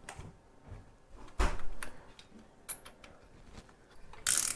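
Small screws, washers and a hex key being handled against the mounting plate of a Bafang mid-drive motor: scattered light metal clicks, a louder clatter about a second and a half in, and a brief harsh scrape near the end.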